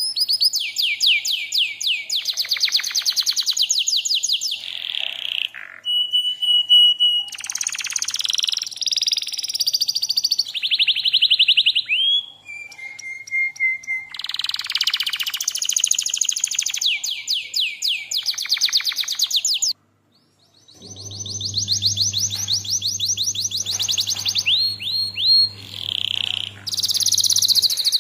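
Domestic canary singing fast trills and rolls of rapidly repeated high notes, with a few held whistled notes in between. The song breaks off briefly about twenty seconds in; after that a steady low hum runs beneath it until near the end.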